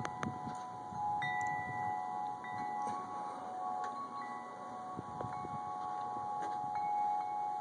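Wind chimes ringing, several long-held notes overlapping, with new notes struck about a second in and again a little later, over light wind.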